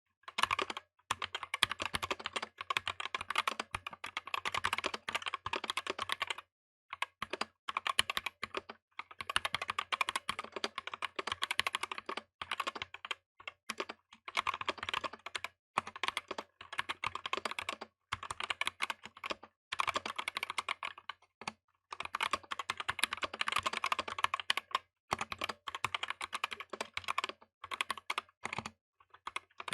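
Typing test on a Tezarre TK63 Pro 60% mechanical keyboard with hand-lubed Gateron optical black linear switches: rapid keystrokes in runs of several seconds with short pauses between.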